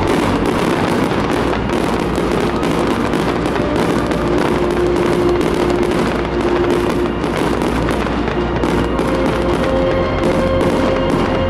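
Aerial fireworks bursting and crackling almost without pause, many small reports close together, with music playing over them in long held notes.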